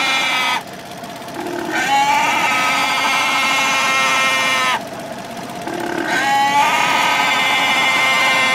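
Long, high-pitched bleating cries of a farm animal, heard three times in a row. Each cry slides up in pitch at its start, holds steady, then breaks off abruptly: the first ends about half a second in, the second runs from about two to five seconds in, and the third starts about six seconds in. A faint steady tone carries on underneath.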